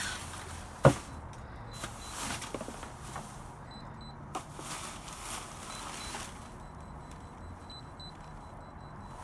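Faint, short, high-pitched electronic beeps, some in pairs, from an unknown device inside a dumpster, over rustling of trash being handled. A sharp knock about a second in is the loudest sound.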